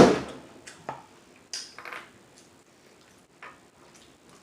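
A sharp knock at the start, then scattered soft clicks and rustles of food and its packaging being handled during a meal.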